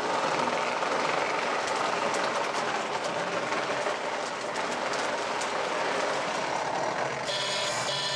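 O gauge model train running along the track: the MPC-era Lionel Illinois Central F3 diesels and passenger cars making a steady rolling rumble, with light clicking of wheels over rail joints. Near the end the sound changes as another O gauge F3 runs by.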